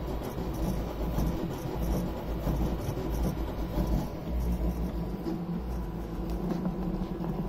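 Custom cross-XY 3D printer printing: its stepper motors and gantry whir and rattle as the print head moves quickly about the bed, over a steady low rumble.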